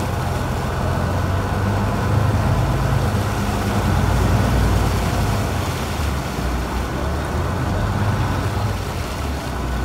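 A passenger canal boat's engine running steadily under way, a low drone, with the rush of water along the hull.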